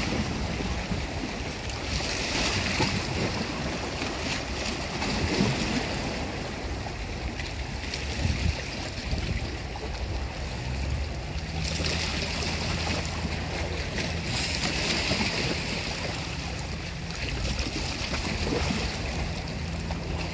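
Choppy seawater sloshing and lapping in the shallows, with wind buffeting the microphone; the wash swells and fades every few seconds. A low steady hum joins about halfway through.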